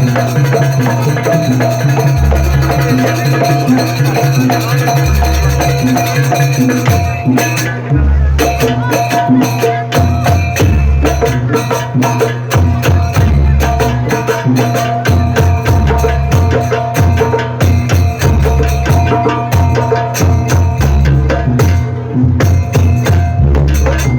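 Live Javanese-style music led by kendang hand drumming: deep, booming strokes over sustained melodic tones. About seven seconds in, the drumming becomes a dense, rapid run of strokes.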